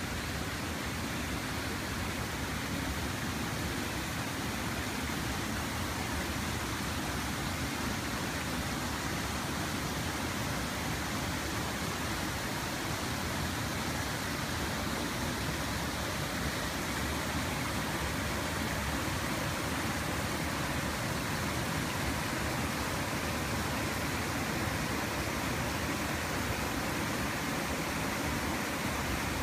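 Stream water flowing, a steady even rushing.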